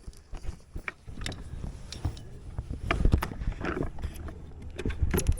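Scattered knocks and clicks of gear being handled on a plastic pedal kayak, over a low rumble of wind on the microphone.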